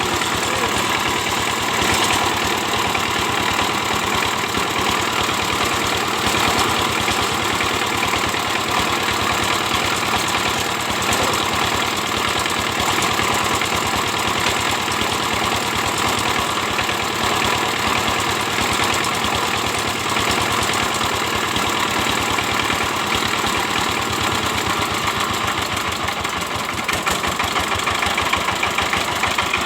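12 hp Chinese single-cylinder diesel power-tiller engine running steadily at an even speed, with a rapid regular beat from its firing strokes.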